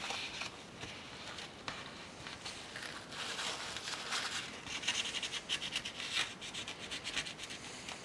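A cloth dampened with isopropyl alcohol rubbing over a laptop CPU die, wiping off old thermal paste: soft, quick, scratchy rubbing strokes that are busiest in the middle.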